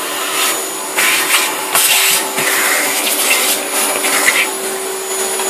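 Vacuum cleaner running with its hose nozzle sucking up wood chips from around an end mill on the milling machine table: a steady rushing hum with louder surges each time the nozzle draws in chips.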